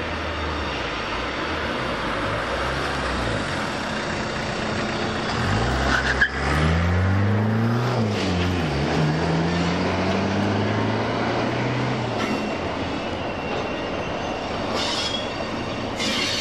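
Class 60 diesel locomotive's eight-cylinder Mirrlees engine powering up as the loco moves off, its pitch rising about five to six seconds in, dipping briefly and rising again, over the steady rumble of other idling locomotives. A sharp knock is heard about six seconds in.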